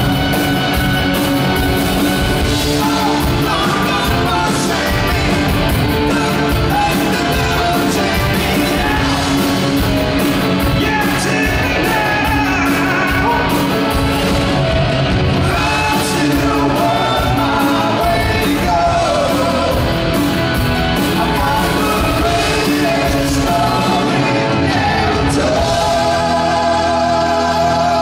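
Live rock band playing: lead vocals over electric guitars, bass, keyboards and a pounding drum kit, heard through a large hall's sound system. Near the end the drum hits fall away under a long held note.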